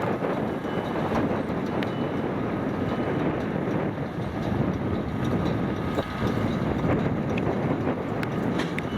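Tractor pulling a round baler-wrapper, running steadily under load as it picks up and bales silage, with occasional short clicks from the machinery.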